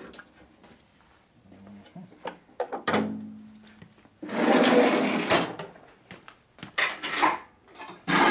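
Steel tool holders and end mills clinking and scraping as a hand rummages through a metal tool-cabinet drawer. There are scattered clicks, a longer scraping rush about four seconds in, and a loud knock near the end.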